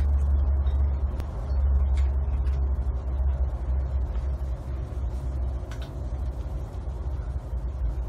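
Domestic cat purring while being stroked: a low, steady rumble that swells and eases slightly with its breathing.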